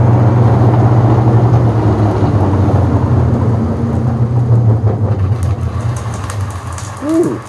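Converted treadmill's drive motor turning two side-by-side sanding belts, a steady hum with belt rumble, on a tracking test where the belts are not yet running straight. About five seconds in it fades and winds down, with rapid light ticking as it slows.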